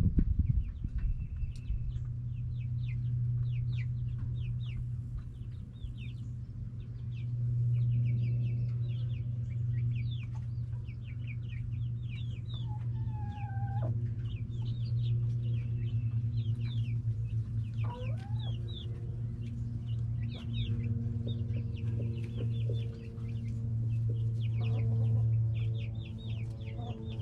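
Backyard chickens clucking in a steady stream of short, quick calls, with a couple of longer sliding calls, over a steady low hum. Music with held notes comes in toward the end.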